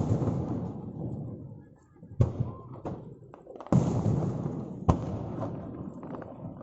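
Aerial fireworks shells bursting: three sharp booms about two, three and a half, and five seconds in, each trailing off in a long rumble, with a few smaller pops between them.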